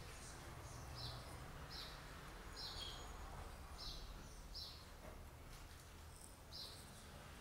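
A bird chirping faintly, short high notes repeated about once a second, over a low steady hum.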